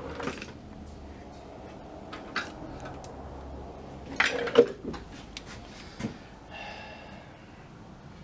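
Small metal tools and radio parts clinking and tapping on a workbench, with a scattered handful of light knocks, the loudest cluster about halfway through. A brief pitched scrape follows later.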